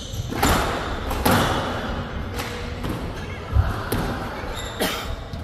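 Squash rally: the ball being struck by rackets and hitting the court walls, about five sharp knocks roughly a second apart, each ringing briefly in the hall.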